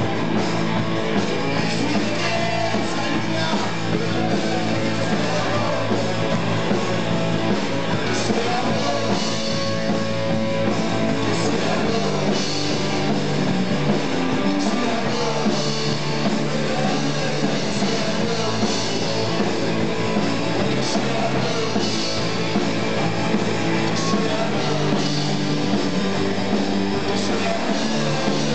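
Live rock band playing: electric guitars over a bass line that shifts note every few seconds, loud and unbroken.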